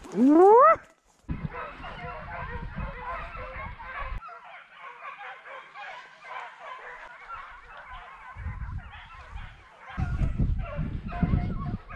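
A loud rising call close by in the first second, then a steady chorus of many short, overlapping animal calls that keeps up. Low rustling comes and goes under it, loudest near the end.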